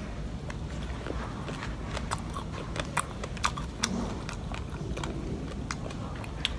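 Eating sounds from a person chewing and picking apart fried catfish with rice by hand: a scattering of short, sharp clicks and crunches, thickest around the middle, over a steady low background hum.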